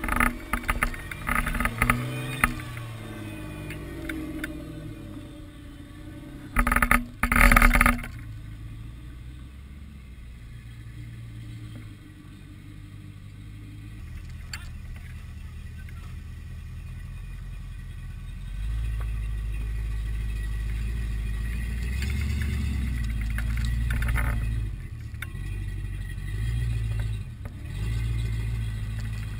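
Engines of lifted four-wheel-drive rigs crawling a rocky trail, a low steady rumble with short revs that grows louder over the last ten seconds as a Jeep Wrangler climbs past. Knocks and clatter in the first few seconds, and two loud bangs about seven seconds in.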